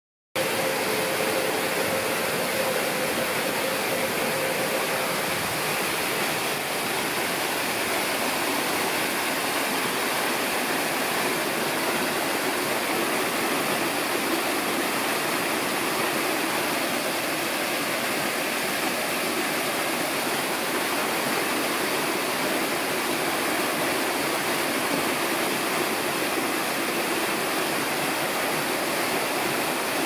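Small rock-work waterfall pouring in two streams onto rocks and into a shallow pool: a steady rush of falling, splashing water.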